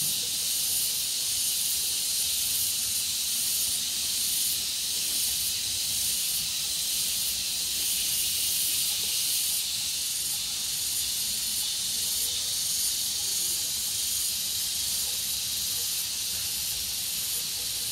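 Steady high-pitched drone of a chorus of insects in a tropical garden, holding level throughout.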